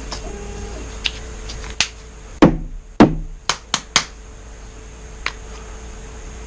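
A series of hard knocks and taps: a couple of light taps, then two loud knocks about half a second apart with a short ringing decay, then three quick lighter taps and one more near the end, over a faint steady hum.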